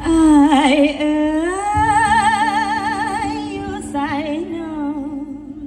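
Music for a stage dance show: a voice sings long held notes with wide vibrato over a steady low drone. It glides up into a long sustained note about a second and a half in and begins a new phrase near the end.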